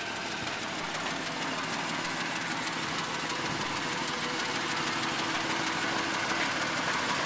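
The 7.4-litre V8 of a 1998 GMC 3500HD tow truck idling steadily, growing a little louder toward the end.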